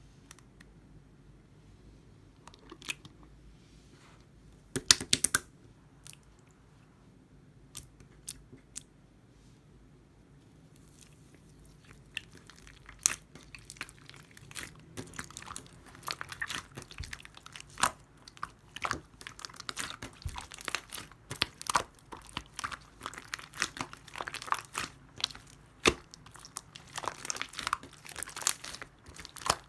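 Clay-mixed slime being worked by hand: a few scattered clicks and pops at first, then from about halfway a dense, continuous crackling and popping as the slime is pressed and stretched.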